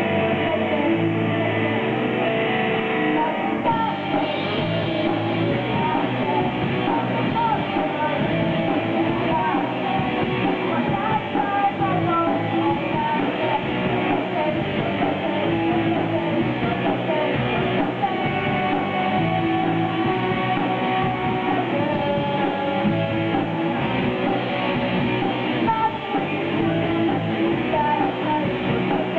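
Live rock band playing: a singer's voice over amplified electric guitar and bass guitar, steady throughout.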